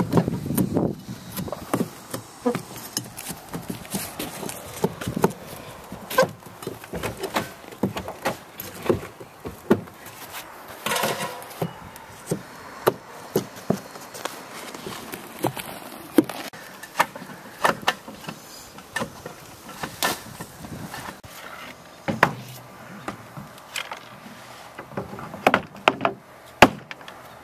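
Roof work on a bare wooden plank deck: irregular sharp hammer knocks and taps, with footsteps on the boards.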